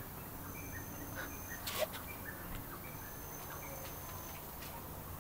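Quiet background ambience: a low steady hum with faint, high-pitched calls, two of them held for a second or more, and a soft click about two seconds in.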